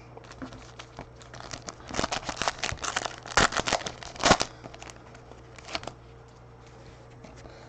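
Trading cards and plastic packaging handled by hand: irregular crinkling and rustling with small clicks, busiest and loudest from about two to four and a half seconds in.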